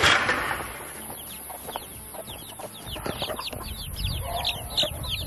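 A brood of young chicks peeping in many short, high, falling notes that grow busier, with a mother hen clucking among them. A short burst of noise comes right at the start.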